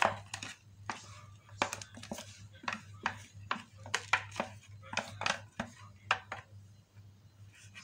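A plastic spatula knocking and scraping against plastic bowls as ground roasted peanuts are scooped into a basin: irregular sharp clicks and scrapes, about two a second, over a steady low hum.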